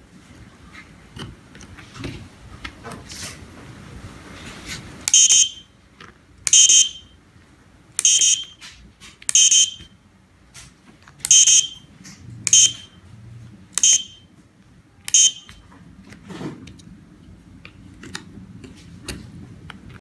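Electronic buzzer on a 433 MHz remote-control test board beeping as buttons are pressed: eight short, high-pitched beeps, each about half a second long, starting about five seconds in and coming every second or two. Faint clicks of push-buttons and handling come in between.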